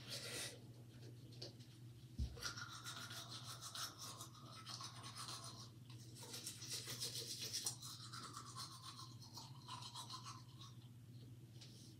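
Toothbrush scrubbing teeth in a run of short, scratchy strokes, with a single knock about two seconds in.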